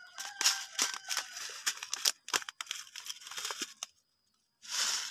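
Crinkling and rustling of a plastic seed packet being handled and opened by hand, with many sharp little clicks, a short pause about four seconds in, then another burst of rustling near the end.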